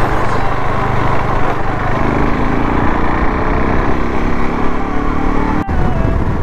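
KTM RC motorcycle's single-cylinder engine under way, its pitch rising steadily as it accelerates from about two seconds in, then breaking off briefly near the end. Wind rushes over the helmet-mounted microphone throughout.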